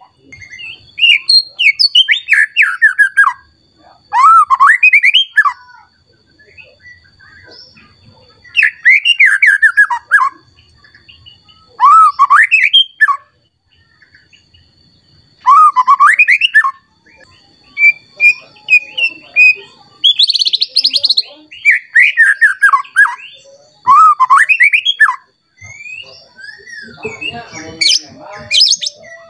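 White-rumped shama singing loud, varied whistled phrases of rising and falling notes, one burst every few seconds. A buzzy rasp comes a little past halfway. It is the agitated, rival-seeking song that keepers call emosi.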